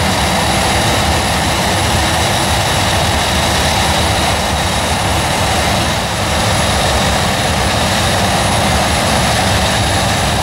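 Jet airliner's turbine running steadily on the ramp: a loud, even roar with a constant high whine on top.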